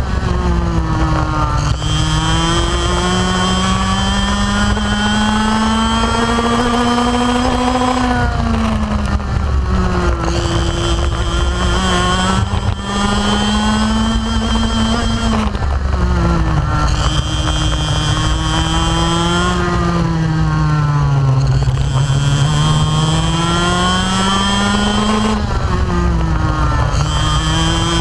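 125cc two-stroke kart engine heard from on board at racing pace. The revs climb steadily for several seconds, then drop quickly into each corner before climbing again, about four times.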